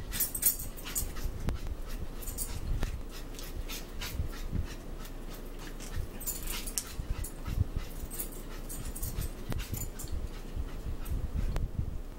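A pet dog's short breathy sounds, coming in irregular bursts every second or two, as it begs for food at the table, with a few soft knocks.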